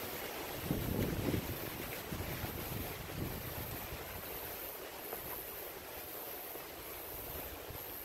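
Outdoor ambience with wind buffeting the microphone in low rumbles, strongest about a second in, over a steady hiss.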